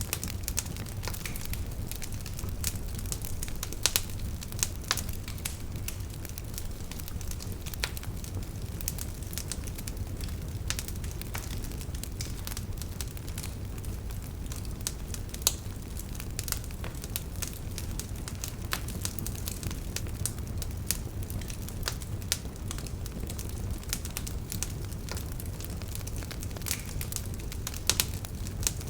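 Campfire burning with a steady low rumble of flame and frequent irregular crackles and pops of wood.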